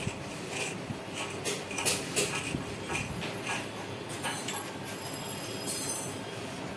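Irregular metallic clinks, scrapes and sharp knocks of tools and metal parts being handled during shock absorber repair work.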